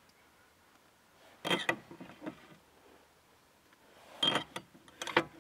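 A table knife scraping jam across a crusty slice of damper, in short bursts of scraping and clicks about a second and a half in and again from about four seconds in.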